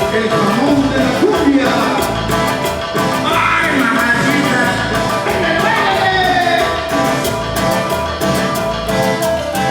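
Band music with a lead singer over a steady drum beat.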